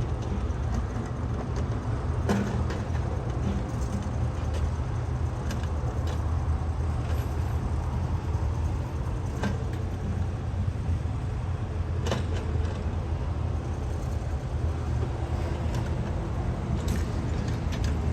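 Diesel engine of a JCB backhoe loader running steadily at working speed, a low drone, with a few sharp knocks scattered through it.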